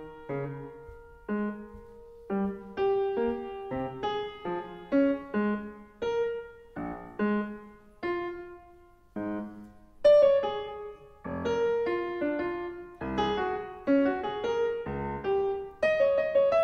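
Yamaha CFX concert grand piano playing a solo passage of single notes and chords, each left to ring and fade, with a fuller, louder stretch from about ten seconds in. Recorded through a Sennheiser MKE-2 lavalier microphone.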